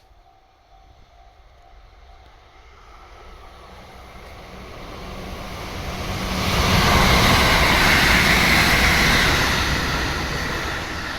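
A train passing by: rolling and wheel noise builds steadily to a loud peak about seven seconds in, then starts to fade.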